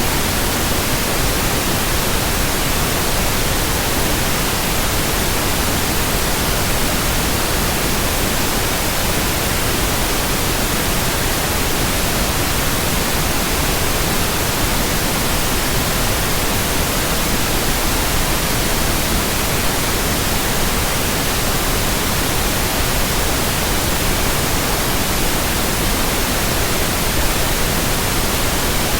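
Steady, unchanging white noise: an even hiss spread from the lows to the highs, with no rhythm, tone or change in level.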